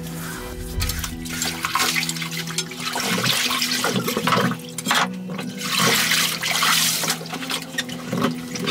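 Water rushing and splashing as a person comes down a water slide into a pool, in two loud surges about three and six seconds in, over steady background music.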